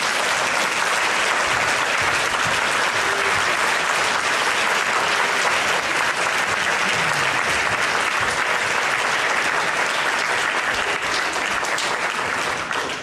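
Large audience applauding steadily, starting to die down near the end.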